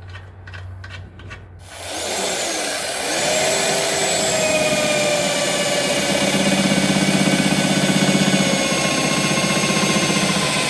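Power drill spinning up about two seconds in, then running steadily under load as it bores into the steel bumper, its pitch sagging slightly. Before it, a few light clicks of hardware being handled.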